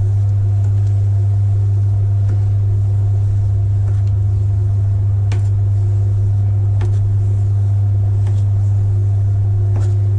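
Electric potter's wheel motor humming steadily at low speed. Faint clicks about every second and a half as a wire cheese slicer is pulled up the clay wall, paring off slices to leave facets.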